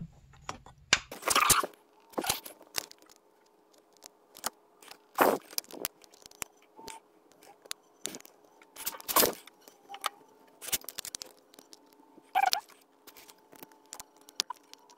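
Scattered small clicks and scrapes of hands handling a digital caliper against a power valve cable end, with a louder scrape about one and a half seconds in.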